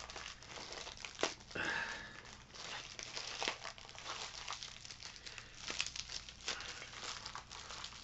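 Plastic wrapping on a Funko Soda can crinkling and being torn off by hand, with irregular crackles and a few sharper snaps.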